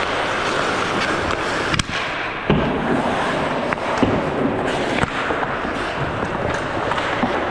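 Ice hockey play on an indoor rink: a steady scraping hiss of skates on ice, broken by several sharp clacks of sticks and puck, the loudest about two and a half seconds in.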